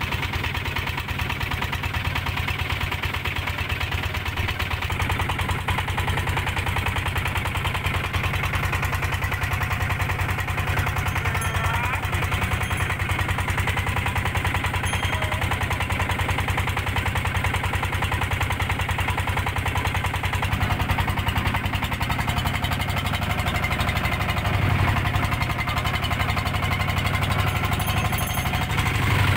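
Boat engine running steadily with a rapid, even chugging.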